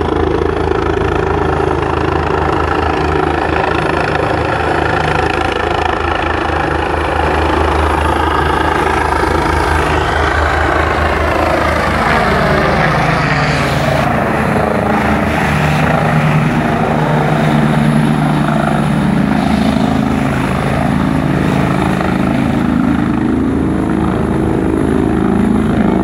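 Airbus EC145 twin-turbine helicopter descending and landing, its main rotor beating and turbines running steadily. About halfway through, the sound sweeps and phases as the helicopter comes down close to the ground, then it keeps running on the ground.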